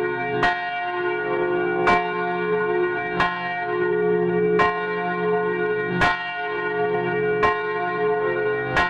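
Bell tolling steadily, struck seven times about a second and a half apart, each stroke ringing on under the next.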